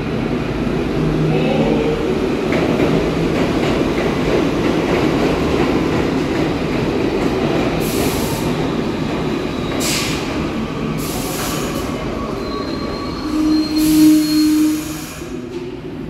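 New York City subway train rumbling along a far track in an underground station, with several short hisses from about halfway through and a brief high squeal near the end, where it is loudest.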